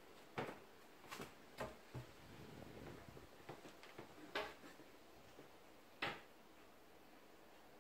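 Faint handling noises: about six soft clicks and knocks, with a light rustle between them, over near-silent room tone.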